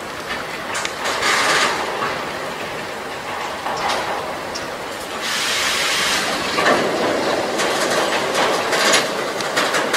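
Freight train of tank wagons rolling past: a steady rumble and rush of wheels on rail, with sharp clicks and knocks as the wheels cross rail joints.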